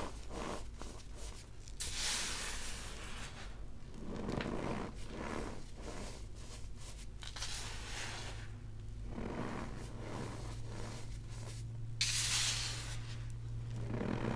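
Hands squeezing and crumbling cornstarch blocks topped with baking soda: the packed powder crunches and squeaks in several handfuls, with small crackles between them, the loudest squeeze about twelve seconds in.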